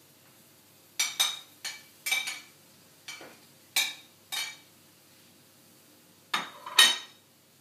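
Metal spatula knocking and scraping against a steel wok as raw chicken livers are tipped in: a run of sharp, ringing clinks and clanks in three clusters, about ten in all.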